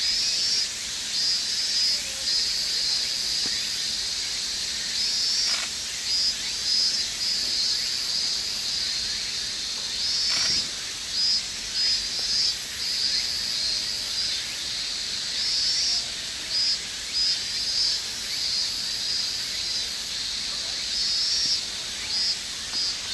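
Insects shrilling: a high, steady buzz that pulses again and again in short bursts, with a soft knock about ten seconds in.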